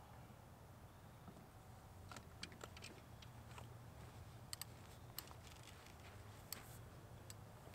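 Faint, scattered light clicks and ticks from a fishing rod and reel being handled, over a very quiet, low steady background.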